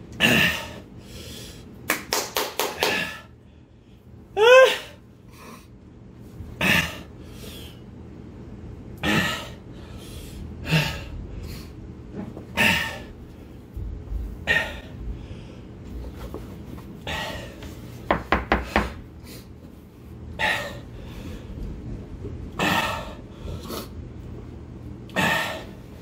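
A man breathing hard through the burn of extreme chili heat: short sharp gasps and puffs of breath every couple of seconds, two quick runs of panting, and one brief rising yelp about four and a half seconds in.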